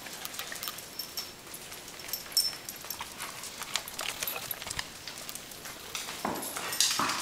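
Small dogs' claws clicking and skittering on a tile floor as they run and play, with a couple of louder bumps near the end.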